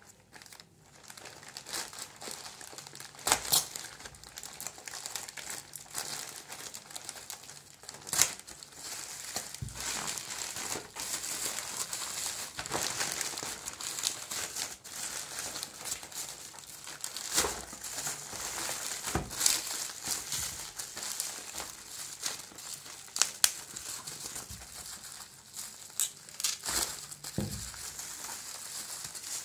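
A plastic courier mailer and the bubble wrap inside it being torn open and crumpled by hand. A steady crinkling runs throughout, broken by sharp crackles and rips.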